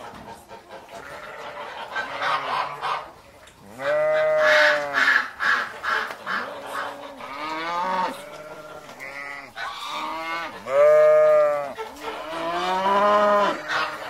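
Cattle mooing: a series of moos, each about a second long and rising then falling in pitch, some overlapping one another.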